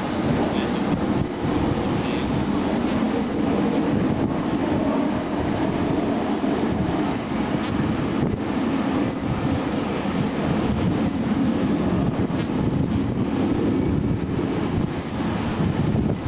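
Jet fighter flying past at a distance, its engines giving a steady noise that holds at one level throughout.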